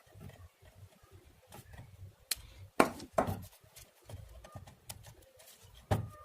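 Handling noise from wiring an amplifier board: sharp clicks and knocks of wires, connectors and tools being worked by hand. There is a cluster of louder knocks about two to three seconds in and another near the end.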